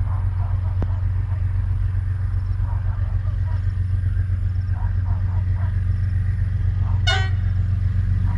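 Diesel locomotive of an Aurizon freight train approaching, its engine a steady low drone that grows slightly louder. About seven seconds in comes one brief horn toot.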